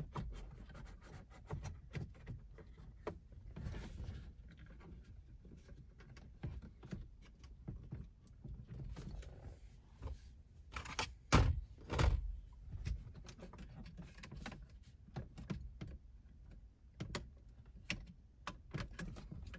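Scattered clicks, rattles and knocks of plastic and metal as a car stereo head unit is handled, pulled out of its dashboard opening, with two louder knocks about eleven and twelve seconds in.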